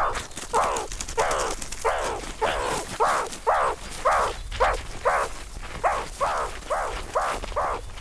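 A wild animal calling over and over in a field recording, about two short calls a second, each note falling in pitch.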